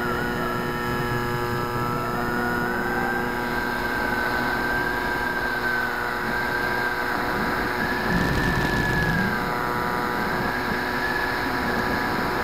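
Multiplex FunCub RC floatplane's electric motor and propeller whining in flight, heard through its onboard keychain camera, the pitch wavering slightly as the throttle and airspeed change. A rush of wind swells briefly about two thirds of the way through.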